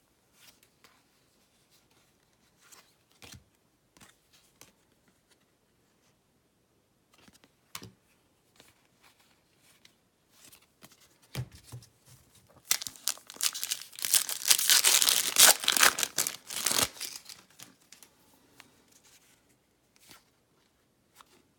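A baseball card pack wrapper being torn open and crinkled, loud for about four seconds after the middle, with scattered faint clicks of cards being handled before it.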